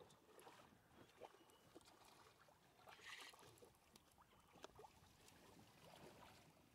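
Near silence: faint water lapping and small splashes of a hooked sea bass thrashing at the surface beside the boat, with a brief faint hiss about three seconds in.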